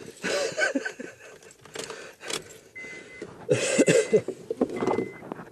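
Car keys jangling and rattling as someone gets into a car, with knocks and handling noise. About halfway through, a high dashboard warning chime starts beeping steadily, roughly once a second.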